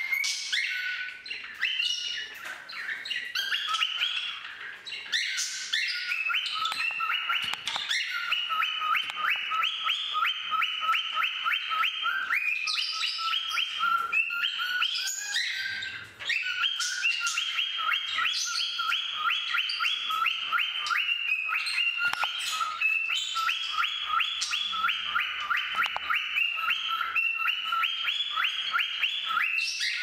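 A pet cockatiel and budgie chirping and singing together: long strings of rapid, high chirped notes, breaking off briefly about halfway through.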